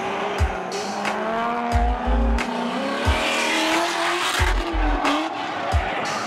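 A drift car's engine revving up and down with tyres squealing on the asphalt, under a trap beat whose heavy kick drum thumps at a regular pace.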